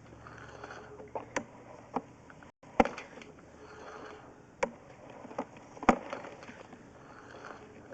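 Scattered irregular clicks and knocks, a few of them much sharper than the rest, over a low steady hum that stops about a second and a half in.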